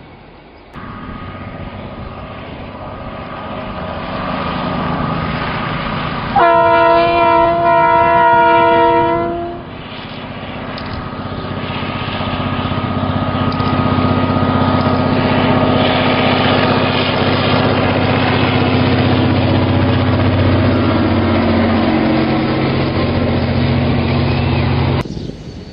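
An EMD G22W diesel locomotive hauling a passenger train approaches and passes. Its engine noise builds, and about six seconds in it sounds one horn blast, a chord lasting about three seconds. The engine and the rolling train stay loud as it goes by, until the sound cuts off shortly before the end.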